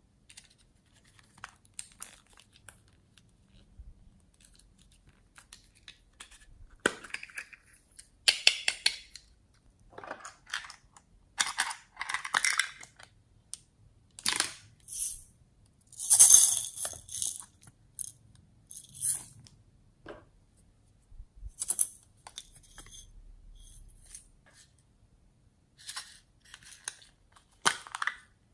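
Small plastic containers being handled and their toppings tipped into a tray of glossy slime: a run of separate short clicks, rattles and crinkling rustles, the loudest about halfway through.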